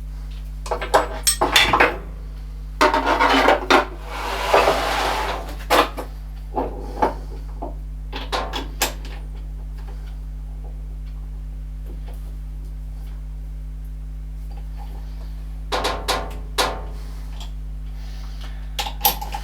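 Metal hand tools clinking and knocking against metal as they are handled during lathe maintenance, in irregular clusters, with a stretch of rubbing about four seconds in, over a steady low hum.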